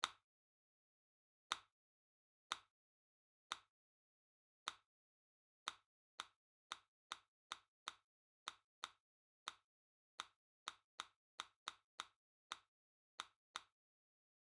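A series of short, sharp click sound effects over dead silence, about a second apart at first, then coming faster, up to about two a second, and stopping shortly before the end, the later clicks slightly softer than the first.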